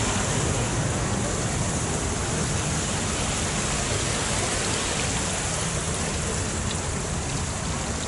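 Water running steadily down a rock-garden water feature: an even rushing sound with a low hum underneath.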